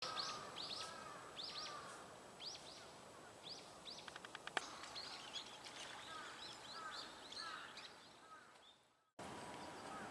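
Outdoor birdsong: small birds giving many short, high chirps that slide down in pitch, with a quick rattle of clicks near the middle and lower chirping notes after it. The sound fades out shortly before the end.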